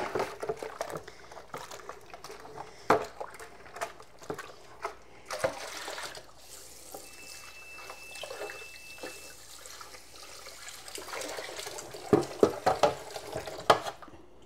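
Tap water running and splashing in a kitchen sink as plastic refrigerator parts are washed out, with scattered knocks and clunks of the parts against the sink, a cluster of them near the end.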